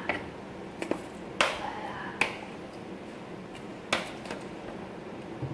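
Metal spoon clicking against a plastic food tub and a wooden cutting board while fried tofu puffs are scooped out: about five sharp clicks at irregular gaps.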